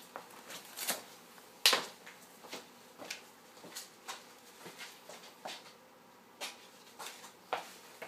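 Footsteps and scuffs of work shoes on a gritty concrete floor: a string of separate knocks and scrapes, one louder knock about two seconds in.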